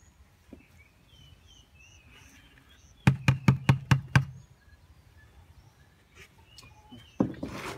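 A quick run of about eight knocks about three seconds in, from a plastic bucket rapped against a plastic drum to shake black soldier fly larvae out into the drum.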